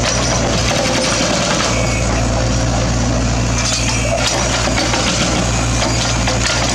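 Mini excavator's diesel engine running steadily under load, with intermittent higher clatter on top.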